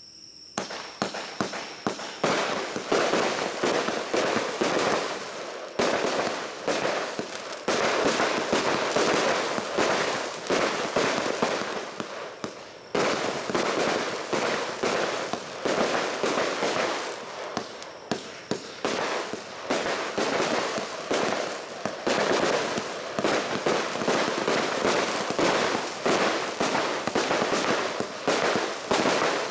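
Aerial fireworks firing and bursting in rapid succession, the bursts breaking into dense crackling. The shots start about half a second in and go on almost without a break, with a few short lulls between volleys.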